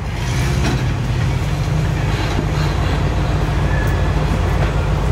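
Jeep Wrangler driving off-road: a steady low engine and drivetrain rumble with a few light knocks.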